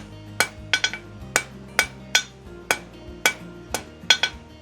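A blacksmith's hammer strikes steel on an anvil, about two or three blows a second, some in quick pairs. Each blow rings out with a clear metallic tone.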